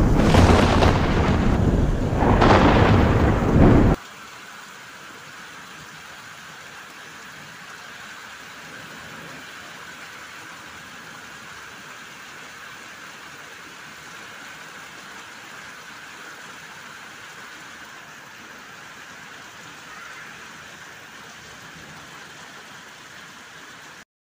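Thunder rumbling loudly, swelling twice, then cutting off suddenly about four seconds in, followed by a steady, much quieter hiss of rain.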